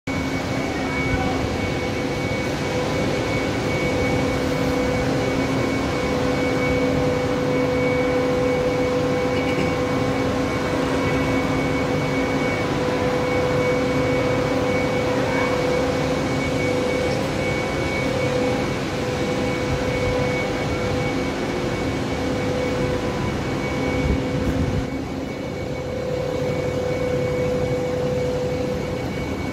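Steady industrial drone of a thermal power plant's machinery: a broad rushing noise with a steady hum and a faint high whine running through it, easing briefly near the end.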